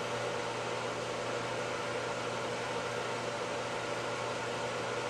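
Steady background hiss with a low, even hum, like a running fan; no clicks or knocks stand out above it.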